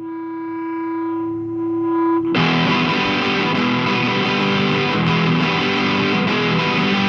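A live rock band opening a song: one held, distorted guitar note rings for about two seconds, then the full band comes in loud with distorted guitar and drums.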